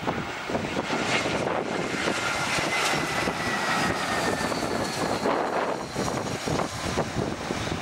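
Twin-engine jet airliner landing: its engines run with a faint whine that slides slowly down in pitch as it passes, over wind buffeting the microphone.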